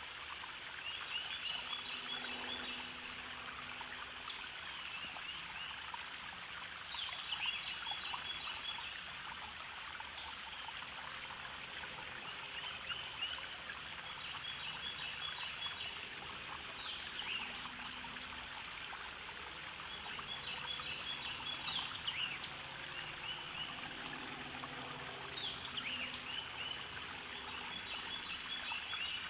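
Steady trickling stream with birds chirping over it, short chirps and trills coming every few seconds.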